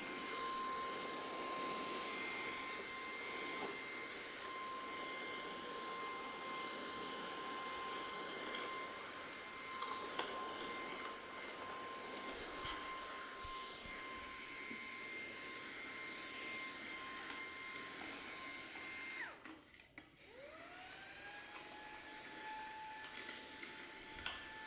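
AGARO Sapphire cordless handheld vacuum cleaner's brushless motor running with a steady high whine and airflow hiss while its square brush attachment works over the floor. About 19 seconds in it switches off; a second later it starts again, its whine rising and settling at a slightly lower pitch.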